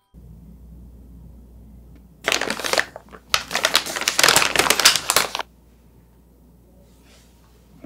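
White paper takeout bag and sandwich wrappers being pulled open and handled, crinkling and rustling loudly in two stretches, a short one and then a longer one of about two seconds.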